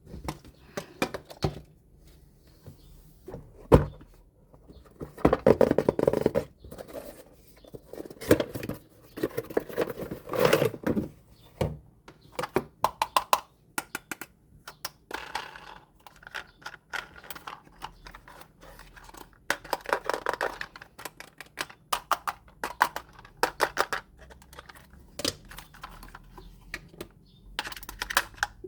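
Hands unboxing and handling toys: scattered clicks, taps and knocks of small toy pieces, with several bursts of rustling, tearing packaging.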